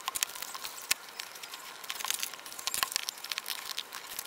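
Hands working open a sealed cardboard tablet box at its edge: scattered light scratching, crackling and small clicks of card and plastic wrap.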